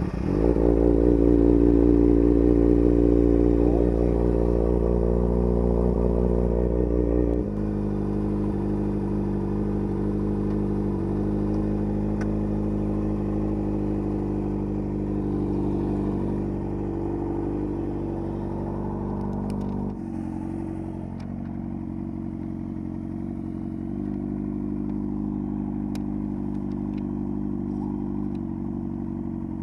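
2011 Kawasaki ZX-6R's inline-four engine idling steadily just after being started. The sound steps down in level about seven seconds in and again about twenty seconds in.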